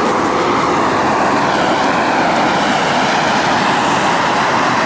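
Mountain stream rushing over stones: a loud, steady rush of water.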